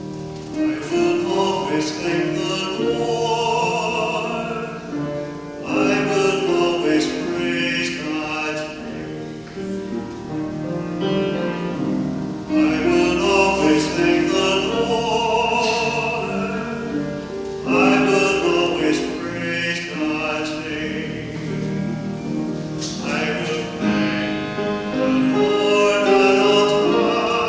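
A trained solo voice singing a slow sacred song in long held phrases, with instrumental accompaniment.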